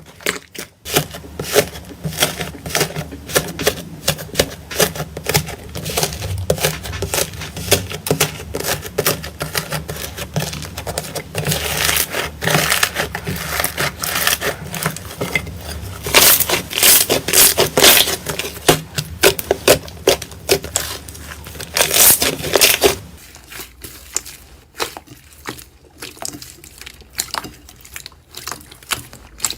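Slime being squeezed and poked by hand, with dense sticky crackling and popping clicks. A low hum under it stops about three quarters of the way through, and the clicking after that is sparser and quieter.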